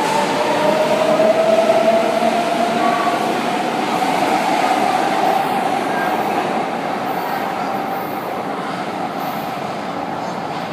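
São Paulo Metro Line 2 train running through the station, its rolling noise mixed with a motor whine that rises slightly in pitch over the first few seconds and then fades as the train's sound eases off.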